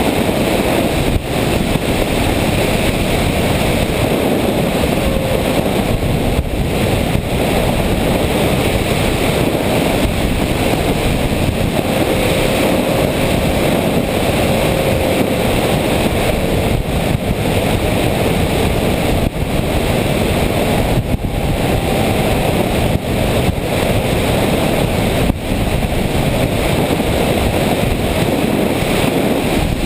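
FPV radio-controlled airplane in flight, heard from its onboard camera: loud, steady wind rush over the microphone mixed with the drone of its motor and propeller, a faint tone drifting slightly in pitch.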